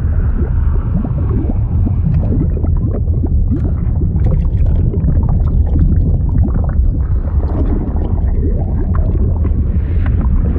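Fluid sound effect: a steady deep rumble of churning liquid with a constant stream of small bubbling sounds on top.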